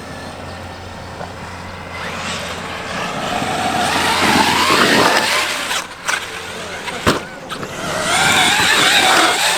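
Electric RC car's brushless motor whining as it accelerates, rising in pitch twice, with a few sharp knocks between the two runs.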